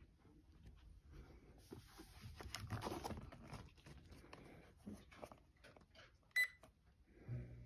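Massage chair's handheld remote handled with rustling, then a single short electronic beep as a button is pressed about six seconds in. A low steady hum begins near the end.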